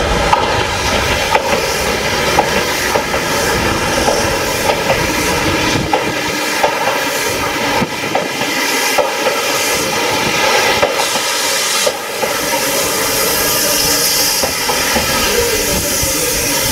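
Meitetsu Panorama Super electric express train passing close by: a steady loud rush of wheels and running gear, with repeated sharp clicks of the wheels over the rail joints.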